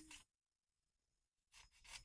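Near silence: room tone. A held, voice-like hum ends right at the start, and a soft rustle begins near the end.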